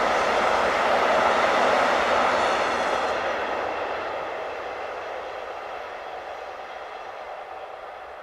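Wheel-on-rail rolling noise of a long freight train carrying lorry trailers and containers, steady for the first two seconds or so, then fading away steadily as the end of the train draws off into the distance.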